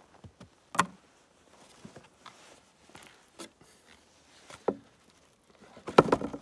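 Handling noises as a ballistic gel block and cotton cloth layers are set up on a wooden bench: a few sharp knocks and taps with cloth rustling between them. The loudest cluster of knocks comes near the end.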